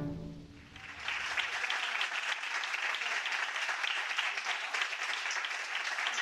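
Audience applauding, starting about a second in as the last chord of the music dies away, then holding steady.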